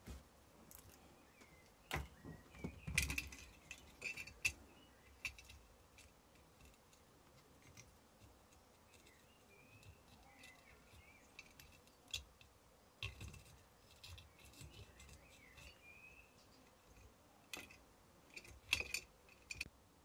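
Quiet, scattered clicks, taps and light scrapes of a soldering iron and copper desoldering braid being worked over a circuit board as the solder is wicked out of the triac's holes, the loudest taps about two to five seconds in.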